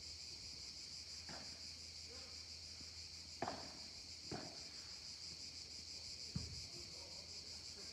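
A padel rally: the ball is struck sharply four times, the loudest hits about a third of the way in and near the end. Under it runs a steady high-pitched insect chorus.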